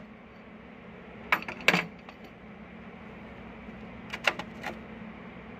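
Sharp clicks and knocks from handling a plastic smoke detector sensor head: two about a second and a half in, and a few more around four seconds in, over a steady low hum.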